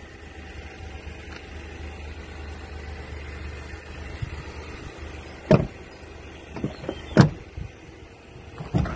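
Toyota 4Runner doors being handled: a few sharp clunks of door latch and panel, the loudest two about five and a half and seven seconds in, over a low steady rumble.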